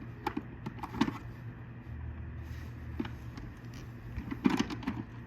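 Plastic clicks and knocks as vacuum cleaner parts are handled and pushed together, trying to get a housing that is out of alignment to seat, with a cluster of rattling clicks near the end, over a steady low hum.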